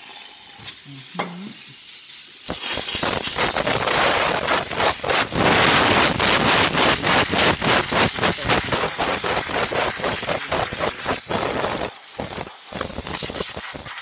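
Rancilio Silvia espresso machine's steam wand opened and venting steam: a loud hiss that sputters and crackles unevenly, starting about two and a half seconds in and briefly dropping out near the end. The steam wand is being run to test it during a tune-up.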